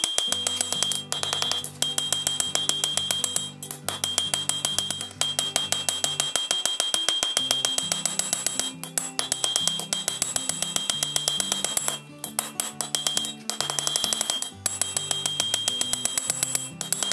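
Background instrumental music with a fast, steady beat and a bass line that steps between notes.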